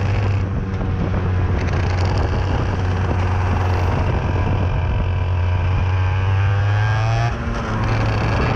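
IAME X30 125cc two-stroke kart engine running under load, heard from the driver's helmet. Its note climbs steadily as the kart accelerates out of a corner, dips briefly about seven seconds in, then picks up again.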